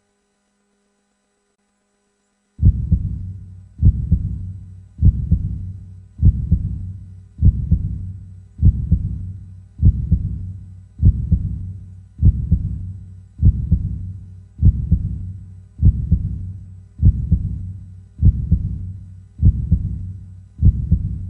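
Heartbeat sound effect: slow, even low thumps about every 1.2 seconds, starting after a silent gap of about two and a half seconds.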